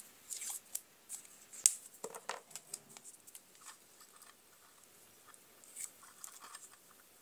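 Black PVC electrical tape being peeled off the roll and wrapped around a wire joint to insulate it: short crackling rips, mostly in the first three seconds, then a few fainter ones.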